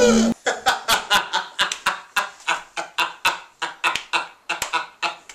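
A held, pitched sound cuts off abruptly just after the start. Then a young man laughs hard in a rapid string of short, sharp bursts, about four or five a second.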